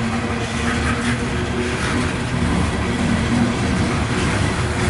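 Loaded coal cars of a CSX freight train rolling past: a steady rumble of steel wheels on the rails, with a steady low hum running beneath it.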